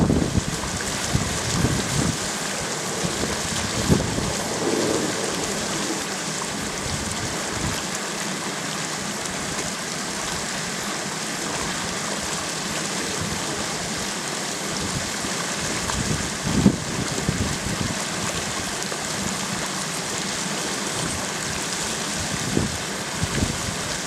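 Steady splashing of water pouring from a pool's stainless-steel waterfall spout onto the water surface, with a few brief low rumbles of wind on the microphone.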